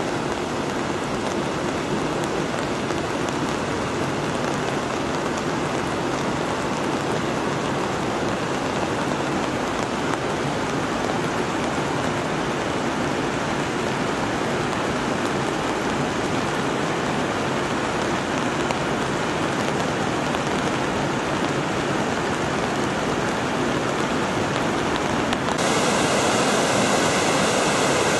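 Steady rain falling, a continuous even hiss. About 25 seconds in it changes abruptly to the louder rush of a rocky mountain stream.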